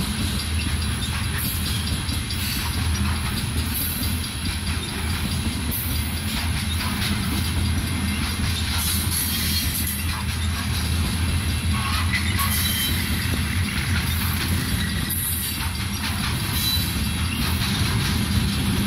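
Loaded coal hopper cars of a freight train rolling past: a steady low rumble of steel wheels on rail, with a hissing, rattling high end that swells and fades every few seconds.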